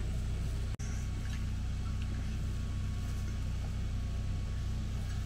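A motor running with a steady low rumble. The sound drops out for an instant about a second in.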